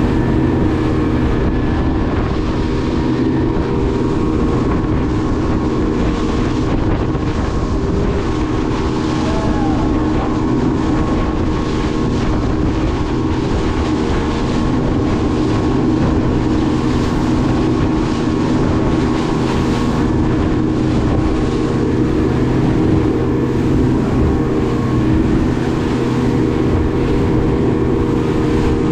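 Motorboat engine running steadily at speed, with water rushing past the hull and wind on the microphone.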